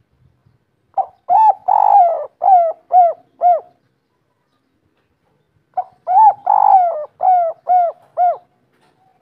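Spotted dove (derkuku) cooing two loud phrases about five seconds apart, each a short lead note, a longer drawn-out coo, and then three short arched 'kuk' notes. This three-note ending is the 'kuk 3' song type that Indonesian dove keepers prize.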